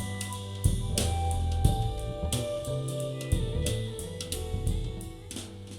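Instrumental band music with drum kit, bass line and guitar, getting steadily quieter toward the end.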